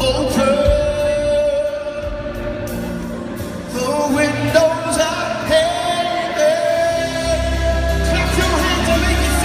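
Live worship band music, with a singer holding long sustained notes over keyboard and band accompaniment; a deep bass comes in about seven seconds in.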